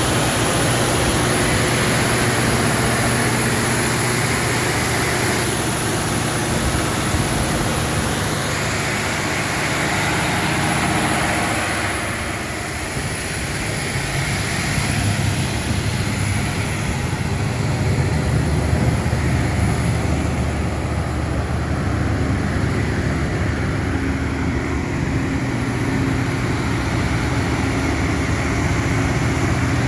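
Caterpillar 3508 V8 diesel engine of a 1000 kW generator set running steadily at full load. A loud, continuous engine drone with a thin high whine; the higher hiss drops away about twelve seconds in while the low drone carries on.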